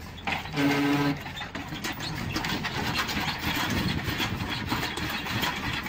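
Loaded log truck working up a rutted dirt track, its engine and running gear making a rough, crackling noise that builds after the first two seconds. Just over half a second in, a short steady tone sounds for about half a second.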